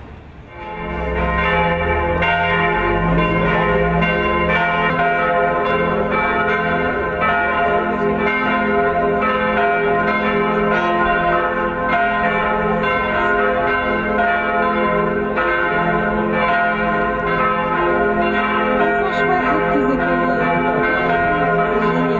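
Church bells ringing in a continuous peal, several bells sounding together with overlapping strikes. The peal swells in about a second in and then holds steady.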